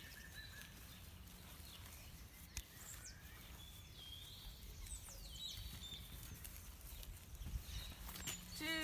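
Quiet outdoor ambience: a steady low rumble with a few faint bird chirps and whistles.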